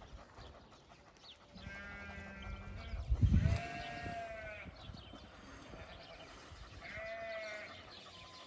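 Sheep bleating from a flock: three or so separate bleats, the strongest about three and a half seconds in. A brief low thump comes just before the strongest bleat.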